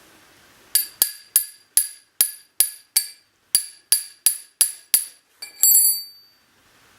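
A hammer tapping on a small metal part: about a dozen sharp, ringing strikes at roughly three a second, then a couple of quick clicks and a short metallic rattle near the end.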